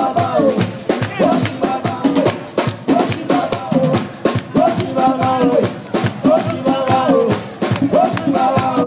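Live Afropop band playing, with a drum kit beat under guitar and saxophone.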